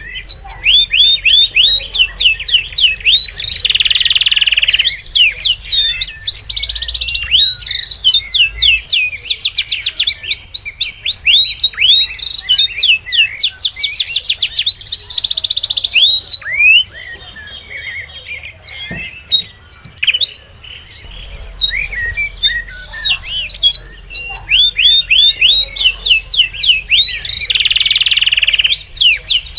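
Small birds chirping busily, many fast, overlapping chirps and trilled runs of short notes, easing off for a few seconds past the middle before resuming.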